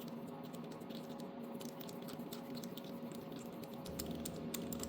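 Light, irregular clicks and taps of a socket and wrench on the Honda Z50's spark plug as it is loosened and removed, over a faint steady hum.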